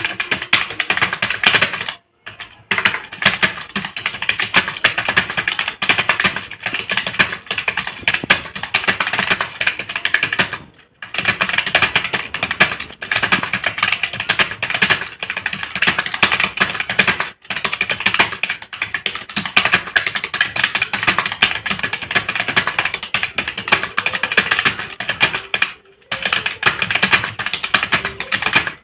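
Fast, continuous typing on a computer keyboard during a typing speed test: a dense rattle of keystrokes broken by a few short pauses.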